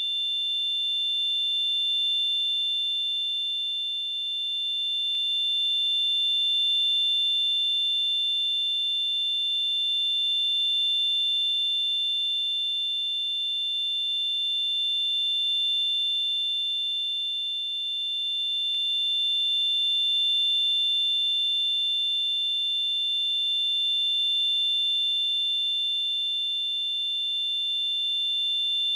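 Simulated tinnitus: a steady high-pitched ringing made of two tones close in pitch, over a faint hiss, slowly swelling and fading a little in loudness.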